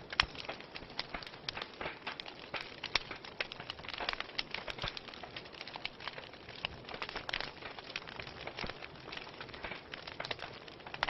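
Wood fire burning in a fireplace: irregular crackles and pops over a soft steady hiss, with one sharper pop near the start.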